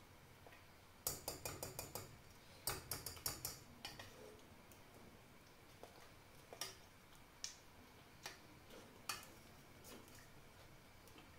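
A utensil clicking against a saucepan while béchamel sauce is stirred: two quick runs of light clicks in the first few seconds, then scattered single clicks.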